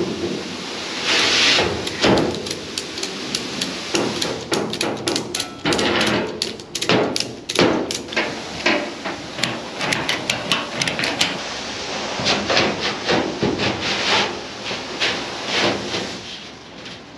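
Ratchet strap being cranked tight around a steel grain-cart auger tube to hold a patch plate, giving irregular runs of sharp metallic clicks. The clicks are densest in the middle and thin out near the end.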